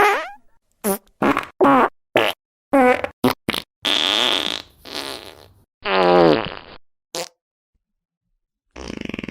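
A string of fart sound effects played one after another: a dozen or so short, mostly pitched and wavering blasts, some brief and some over half a second long, each cut off into dead silence, with a longer buzzy one near the end.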